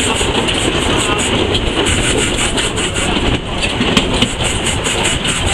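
Steam locomotive running, heard from inside its cab: a loud, steady mechanical din with a fast run of regular clicking.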